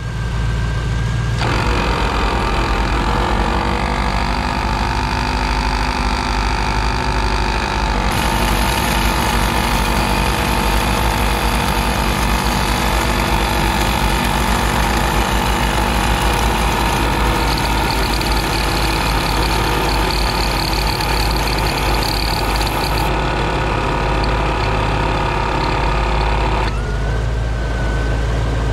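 ARB CKMAT12 twin 12-volt air compressor running under load, drawing close to 40 amps, a loud steady mechanical drone with a low hum. One of its two pumps is failing.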